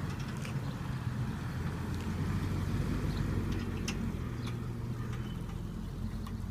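Jeep Wrangler's engine running at low speed as it drives off, a steady low hum that grows slightly fainter as it moves away.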